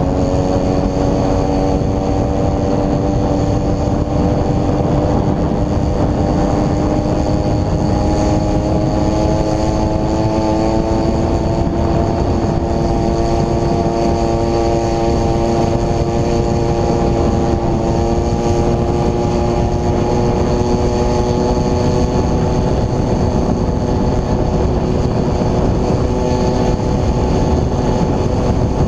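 Homelite 33cc two-stroke chainsaw engine driving a bicycle, running hard with its pitch climbing slowly as the bike gains speed, with wind noise on the microphone.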